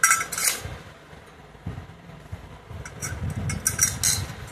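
Light metal clinks and taps as steel bolts and a tool knock against the cam holder plate and cylinder head while the bolts are set in. A few clinks come right at the start and a cluster comes about three to four seconds in.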